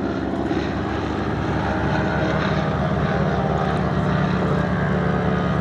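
Boeing Stearman biplane engine and propeller running at display power: a steady, pulsing drone that grows slightly louder as the aircraft comes closer.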